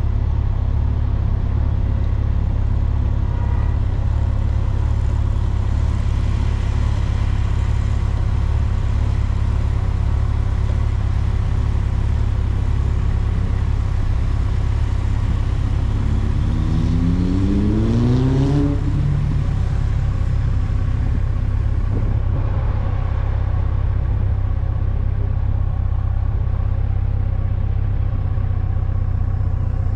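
Vehicle on the move: a steady low rumble of engine, road and wind noise. About sixteen seconds in, an engine revs up, rising in pitch for a couple of seconds before cutting off suddenly.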